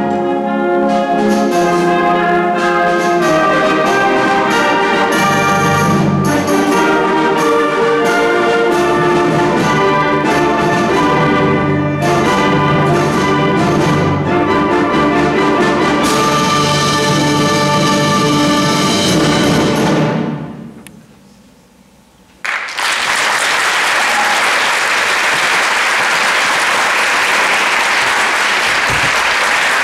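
A school concert band of brass and woodwinds playing the closing bars of a piece, ending about twenty seconds in as the last chord dies away. After a second or two of quiet, the audience breaks into steady applause.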